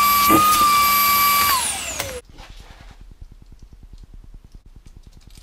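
Vacuum cleaner sucking masonry dust out of a freshly drilled hole in a concrete floor, running with a loud high whine. It is switched off about a second and a half in, and the whine falls as the motor runs down and stops, leaving only faint rapid ticking.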